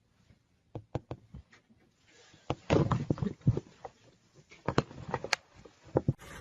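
Irregular short knocks and taps, a dozen or more, clustered most thickly and loudest around three seconds in.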